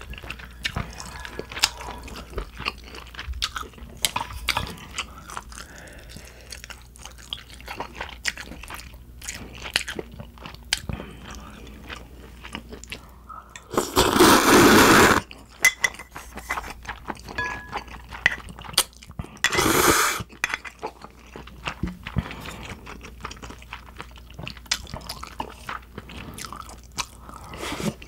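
Close-miked eating of spicy cold naengmyeon noodles: steady chewing with small wet mouth clicks, broken by two loud slurps of noodles, a longer one about halfway through and a shorter one about six seconds later.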